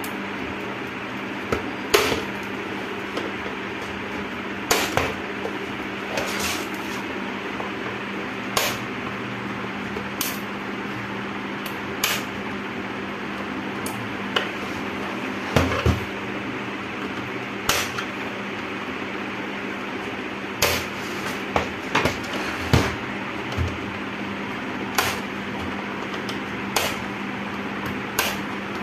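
Plastic snap clips of an HP LCD monitor's bezel and back cover clicking loose as a flat screwdriver pries the case apart: irregular sharp clicks and snaps, some louder than others, over a steady background hum.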